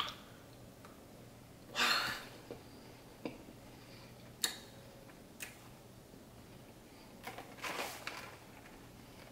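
Quiet closed-mouth chewing of a fudge-covered Ritz cracker: a few scattered soft clicks, with a short breathy sound about two seconds in and another near the end.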